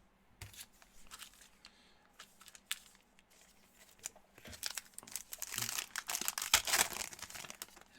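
Scattered light clicks of cards being handled, then from about four and a half seconds in, a trading-card pack's foil wrapper crinkling and tearing open.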